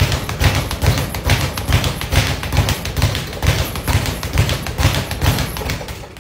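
Speed bag being punched in a fast steady rhythm, the leather bag rebounding off the platform in repeated thumps about three a second with quicker taps between them. The punching stops near the end.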